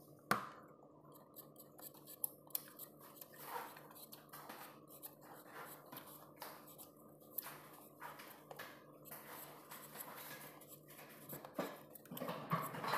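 A small kitchen knife carving a raw carrot by hand: faint, irregular scrapes and clicks of the blade cutting into the carrot, with a sharper click just after the start and busier handling noise near the end.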